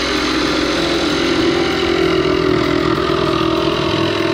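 Kobalt 24V brushless compact reciprocating saw running at a steady speed as it cuts through plywood, trimming the excess off a plywood gusset.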